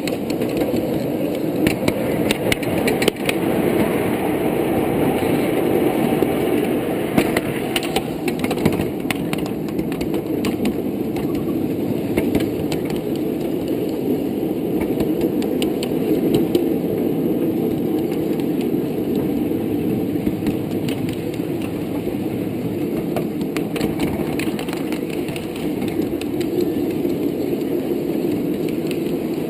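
Ride-on miniature railroad train rolling along its track, heard from aboard a riding car: a steady rumble of the wheels on the rails with scattered sharp clicks, most often in the first ten seconds.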